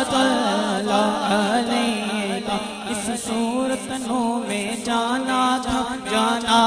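Male voice singing a naat through a microphone and PA, drawing out long wavering melismatic notes without clear words, over a steady low drone.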